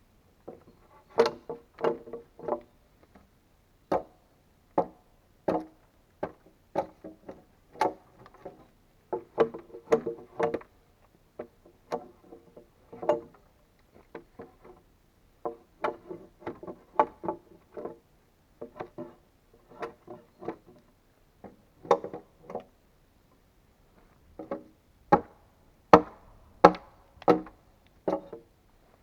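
An axe striking wood over and over in irregular runs of blows, about one or two a second, each with a short woody ring.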